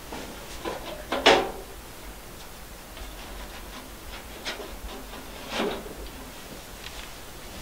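Small wooden knocks, clicks and scrapes as the little doors of a wooden household Shinto shrine (kamidana) are handled and pushed shut, with one louder knock just over a second in and another at about five and a half seconds.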